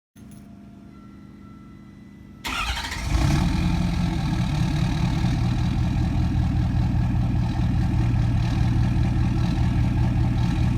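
Cat 262 skid steer's diesel engine starting: a faint steady hum, then about two and a half seconds in the engine catches and runs steadily and much louder, cutting off just before the end.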